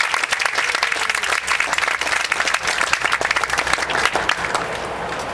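A crowd applauding, a dense patter of many hands clapping that thins out and dies down about four to five seconds in.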